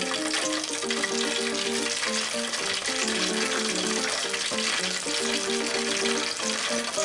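Beer-battered cod deep-frying in the hot oil of an electric deep fryer: a steady, dense sizzling hiss. Background music with a simple melody plays over it.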